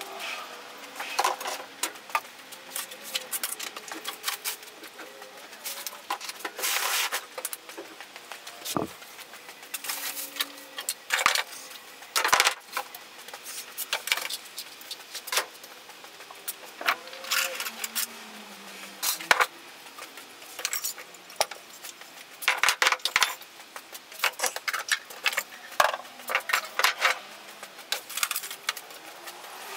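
Bottles, cans and small items clattering and knocking as they are lifted off wooden shelves and put down, in irregular clusters of sharp knocks and rattles.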